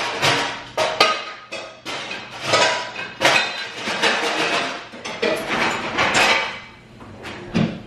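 Pots and pans clattering and banging as someone digs through a crowded lower kitchen cabinet: a long, irregular run of metal knocks and clinks that dies down near the end.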